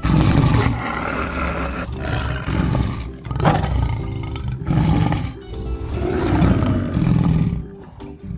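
A large wild animal roaring, a series of deep roars about a second long one after another, over background music.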